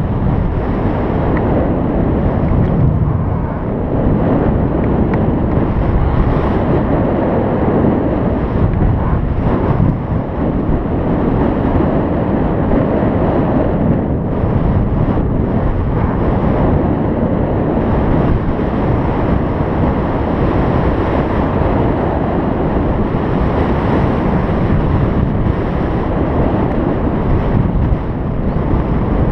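Steady, loud wind rushing over the microphone from the airflow of a paraglider in flight.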